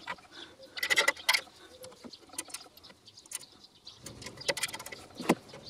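Irregular small clicks, taps and light scraping as a clear plastic eye shield and its small mounting screw are handled and fitted onto a bench grinder's metal guard bracket. The sharpest clicks come about a second in and again near the end.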